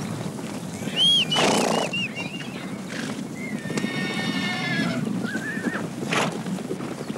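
A herd of horses being driven by riders, with several shrill whinnies: a loud one about a second in, a longer held one around four seconds, and a short rising one near six seconds, over a steady low rumble.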